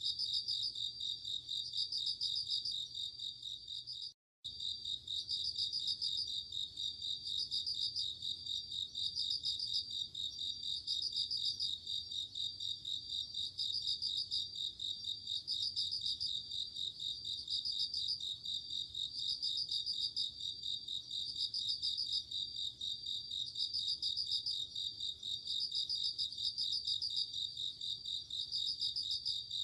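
Japanese bell crickets (suzumushi) singing at night: high, ringing trilled phrases repeating about every two seconds over a continuous high chirring chorus. The sound cuts out briefly about four seconds in.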